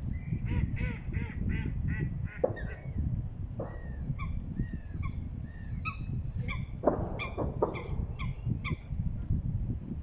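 Waterfowl calling: a quick run of short honking calls in the first couple of seconds, then scattered single calls through the rest, over a steady low rumble.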